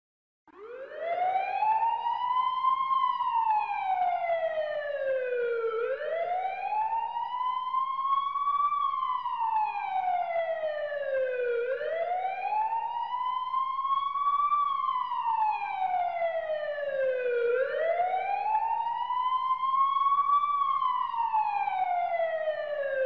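Emergency vehicle siren in a slow wail: the pitch climbs in a curve, then falls steadily, repeating about every six seconds. It starts suddenly about half a second in.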